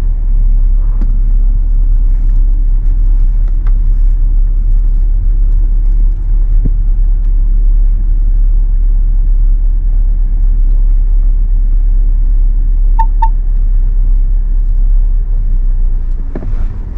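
Steady low rumble of road and engine noise inside a Ford pickup's cabin as it drives slowly, with a faint engine tone that drifts gently in pitch. About thirteen seconds in come two short, quick high beeps.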